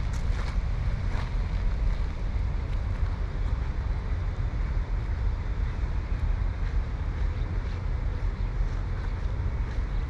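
Wind blowing across the microphone: a steady low rumble that rises and falls.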